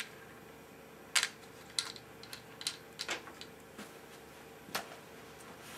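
Irregular light clicks and knocks, about seven in a few seconds, the loudest about a second in, from hands handling a TV's casing parts and screws. A faint steady hum runs underneath.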